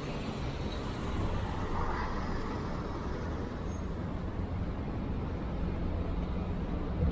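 Steady street traffic: cars and a truck driving past on a wet road.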